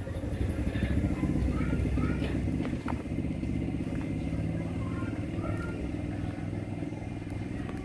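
An engine running steadily, loudest a second or two in and then easing slightly.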